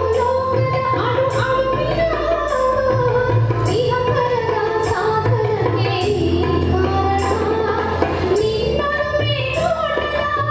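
A woman singing a Kannada devotional song into a microphone over a recorded backing track. The melody bends and holds long notes over a steady accompaniment, with a percussion stroke about once a second.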